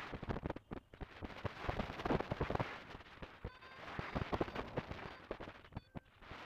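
Strong wind buffeting the microphone in flight, a rough rush broken by rapid pops and thumps that swell and ease with the gusts. A faint steady beeping tone comes through briefly a little past the middle and again near the end.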